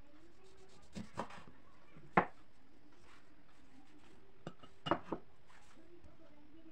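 Kitchen knife cutting through a lemon and knocking onto a wooden cutting board, with a couple of light knocks about a second in and the loudest knock about two seconds in. Near the end comes a quick cluster of knocks as a ceramic bowl is set down on the board.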